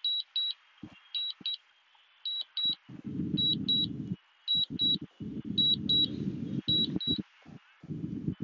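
Drone flight app's return-to-home alert: short high beeps in pairs, a pair about once a second, signalling that the drone is flying itself home. Patches of low rumbling noise come and go underneath in the middle and later part.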